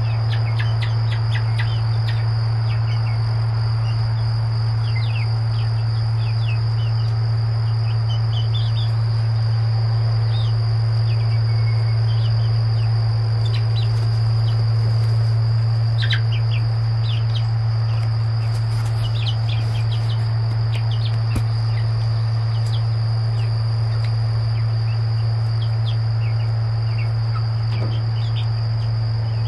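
Seven-week-old chicks peeping, with many short high chirps scattered throughout. Under them run a steady low hum, the loudest sound, and a constant high whine.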